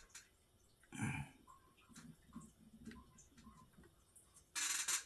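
Quiet handling of workshop tools: a soft knock about a second in, faint small noises, then a brief louder metallic rustle near the end as tools and drill bits are handled.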